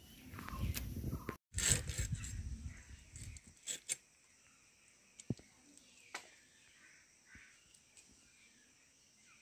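Fish being cut by hand: a stretch of rumbling handling noise with clicks for the first three and a half seconds, then a few isolated sharp clicks.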